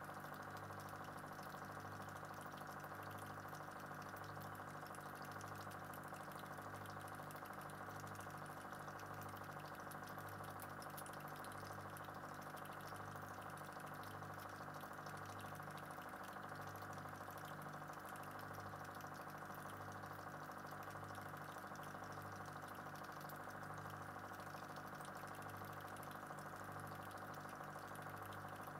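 Steady hum of a small motor, such as a pump or fan, with many steady tones and a slow, regular wavering in its low end.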